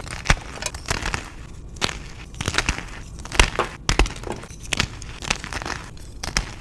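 Reformed gym chalk being crushed and crumbled, a run of irregular crisp crunches and crackles, some sharper and louder than others.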